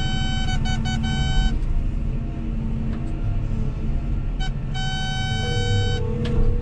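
Mobile phone ringing, its ringtone tones coming in short bursts and one longer stretch near the end, over the steady low running of a Cat 323F excavator's diesel engine heard from inside the cab.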